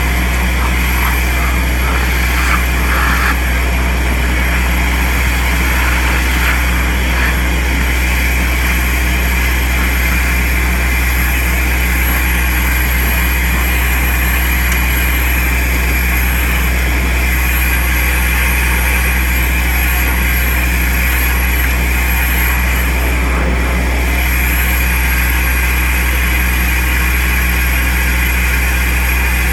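Compact soil vacuum excavator running steadily while its suction pipe draws soil out of a hole among tree roots: a loud, constant drone with a thin high whine.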